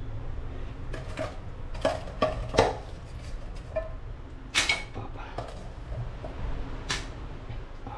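Cookware and utensils being handled: about half a dozen scattered clinks and knocks, the loudest about halfway through and near the end, over a steady low rumble.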